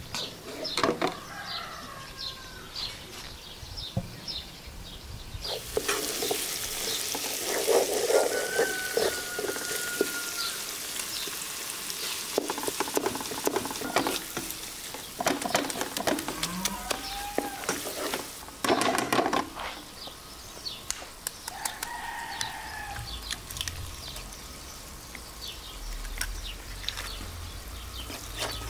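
Shredded cabbage, carrot and pepper frying in a metal pot, stirred with a wooden spoon that clicks and scrapes against the pot. A loud sizzling hiss comes in suddenly about five seconds in.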